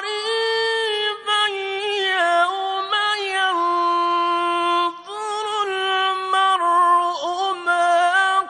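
A male qari reciting the Quran in the slow, melodic mujawwad style, holding long ornamented notes in a high register. There is a short break for breath about five seconds in.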